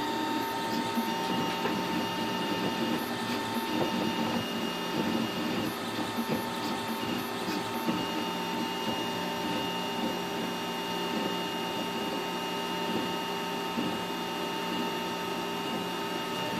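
MakerGear M2 FDM 3D printer running a print: its stepper motors whine in steady tones that shift and cut in and out every few seconds as the print head traces the first layer, over a constant hum.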